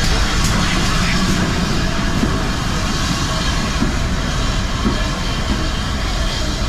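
Train rolling along the rails with a steady, loud rumble.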